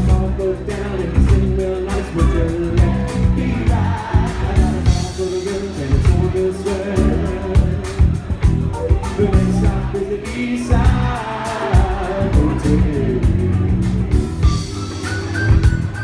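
Live band music with singing over drums, electric guitar and bass, a steady beat throughout, recorded from the audience.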